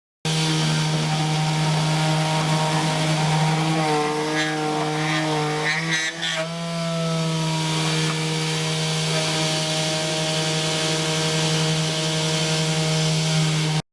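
CNC milling machine cutting: a steady spindle tone runs alongside a whine from the axis drives, whose pitch slides up and down between about four and six seconds in as the feed changes. The sound starts and stops abruptly.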